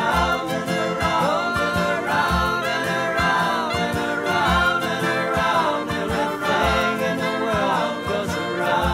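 Background music from a song: a gliding melodic lead over regular low bass notes, in a stretch with no words.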